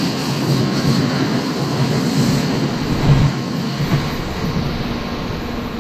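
Shinkansen bullet train running past along the platform: a steady rush and rumble of the moving cars, with a couple of knocks about three and four seconds in. It eases off as the end car goes by.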